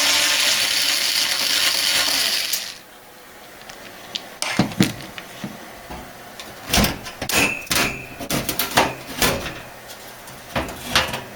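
Power screwdriver running for about two and a half seconds, backing a screw out of a PC case, followed by scattered metallic clicks and knocks as the case's steel side panel is worked loose.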